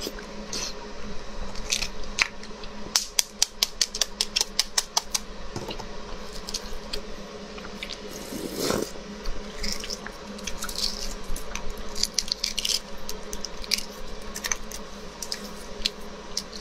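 Eggshells of huozhuzi (fertilised, partly developed eggs) being cracked and peeled by hand: crisp clicks and crackles, with a fast run of sharp crackles about three seconds in. A brief slurp about eight seconds in as one is bitten into.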